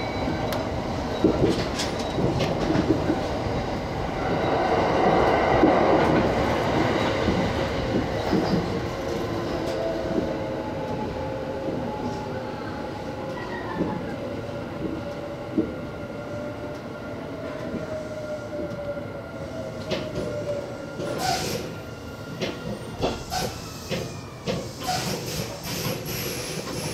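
Kintetsu electric train running and slowing down, heard from inside the front car: a motor whine falls steadily in pitch as the running noise fades, and the wheels click over rail joints, the clicks sharper in the last few seconds.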